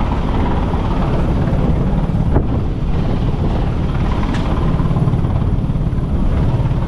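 Rescue helicopter's rotor beating steadily as it hovers close by, with a single brief click about two and a half seconds in.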